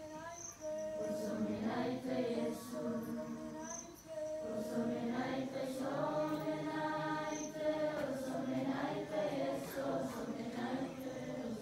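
A large group of schoolchildren singing an evening hymn together, with a short break between phrases about four seconds in.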